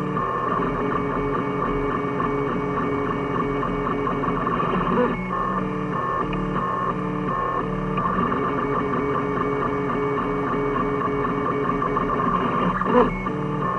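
3D printer stepper motors whining through print moves, their tones stepping in pitch every fraction of a second as the head changes speed and direction, over a steady fan hum; a short clack about five seconds in and a louder one near the end.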